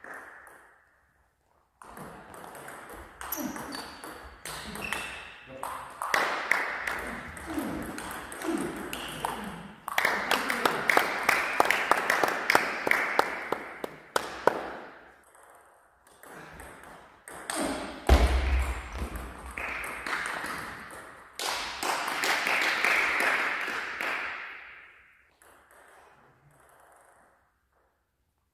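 Table tennis rallies: the celluloid-type plastic ball clicks off rubber-faced bats and bounces on the table in quick alternating strikes, in two long exchanges. A heavy low thump comes at the start of the second exchange.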